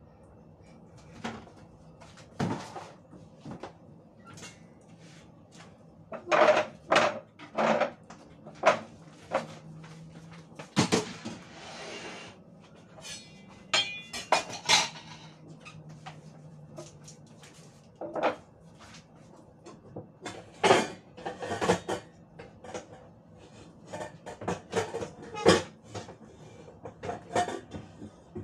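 Kitchen clatter: irregular knocks and clinks of dishes, pots and cupboard doors being handled, with a short rushing scrape about eleven seconds in.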